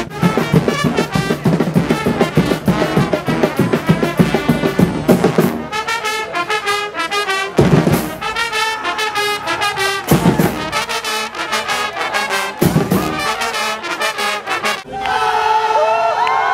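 Street brass band of trumpets, trombones and drums playing loudly, with strong percussion hits about every two and a half seconds in the second half. Near the end the music stops and a crowd starts cheering and shouting.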